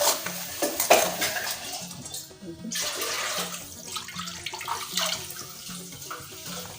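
Milk being poured into a pot of hot water and melted camel fat, a pouring, splashing sound that breaks off briefly about two seconds in.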